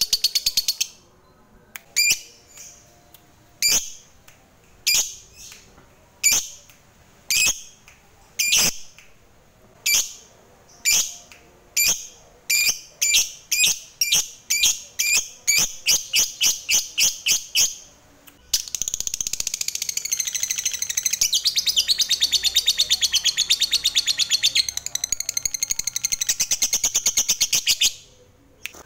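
Lutino peach-faced lovebird calling: sharp high chirps about a second apart that speed up to about three a second, then run into one long rapid chattering trill, the 'ngekek', of about ten seconds that stops suddenly near the end.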